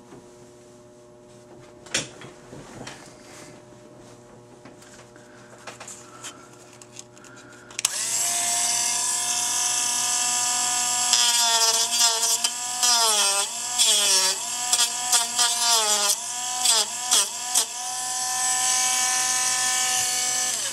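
Dremel rotary tool with a cutoff wheel switching on about eight seconds in and running as a high, steady whine. From about 11 to 18 seconds its pitch dips again and again as the wheel is pressed into the plastic clamps of a radio IF coil's base, then it runs steady again and stops at the very end. Before it starts there are a few handling clicks, the loudest about two seconds in.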